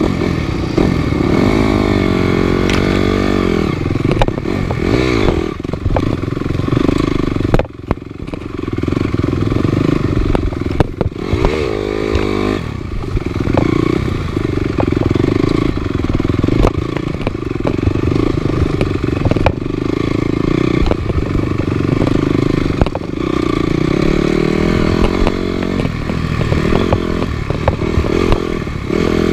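Off-road motorcycle engine riding a trail, its pitch rising and falling again and again with the throttle and gear changes, with occasional knocks and rattles from the bike over rough ground.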